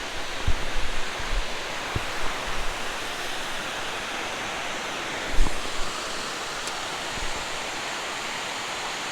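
Steady rush of river water pouring over a spillway, with a few short low thumps in the first few seconds and one more about halfway through.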